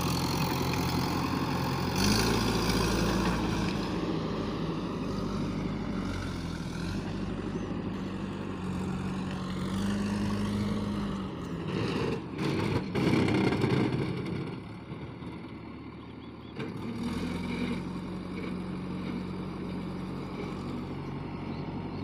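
JCB 3DX backhoe loader's diesel engine running steadily as the machine drives, its pitch stepping up and down with the throttle. Just past the middle there is a short rush of noise with a few knocks, and shortly after the engine fades for a couple of seconds before coming back.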